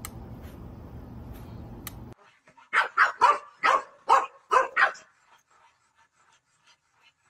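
A dog barking, a quick run of about seven barks in a little over two seconds. Before it, a steady low hum with a couple of sharp clicks.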